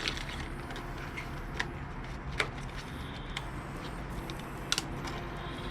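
A few short clicks and taps of small timing-chain kit parts being handled, over a steady low background hum.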